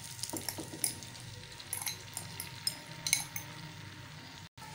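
Beaten egg with grated carrot, onion and capsicum poured into a pan of oil and spread with a fork: a faint sizzle with scattered light clicks of the fork against the pan.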